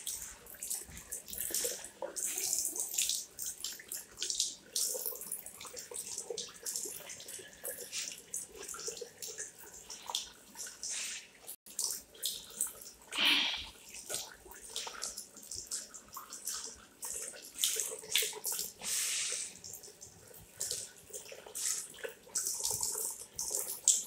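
Water running from a Hyco push-button tap and splashing unevenly into a small Armitage Shanks ceramic basin and down its drain, louder for a moment about halfway through.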